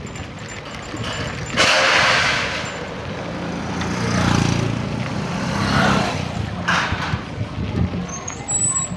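Road traffic on a dirt road: a sudden loud rush of noise about one and a half seconds in, then an engine hum that swells and fades around the middle, with shorter rushes after it.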